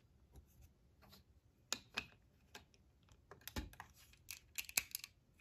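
Plastic Lego pieces being handled: scattered light clicks and clatters, a few at first and a busier run of them in the second half.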